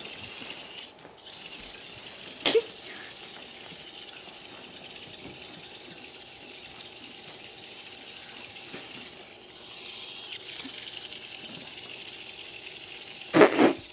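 Steady faint rattling buzz of Hexbug toy robots vibrating across the floor. A sharp knock comes about two and a half seconds in, and a louder double knock near the end.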